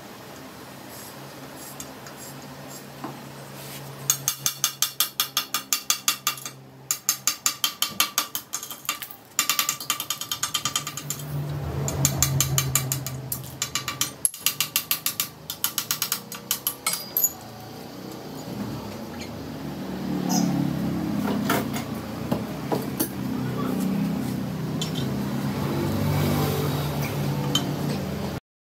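Hammer tapping the underside of an 8 mm glass sheet along a scored circle to run the cut. The taps come in quick runs of several a second, then give way to a rougher, uneven noise that cuts off suddenly near the end.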